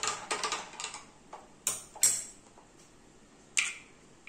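A metal spoon clinking against a drinking glass while salt is stirred into water: a quick run of light clinks in the first second, then three sharper single clinks spread over the rest.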